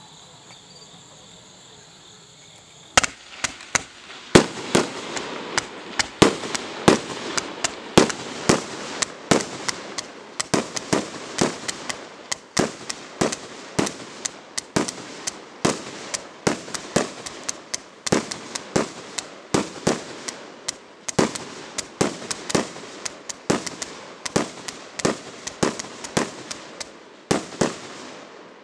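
Pyromooi E5628 'Night Shock' firework battery firing a long volley. The sharp shots come about two a second over a constant hiss, starting about three seconds in and running for some 25 seconds before dying away near the end.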